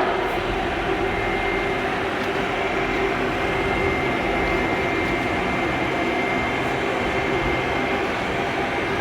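Vacuum cleaner paired by Bluetooth to a Makita cordless power cutter, running steadily with a steady whoosh of air and a faint high whine, left running after the cutter's blade has spun down.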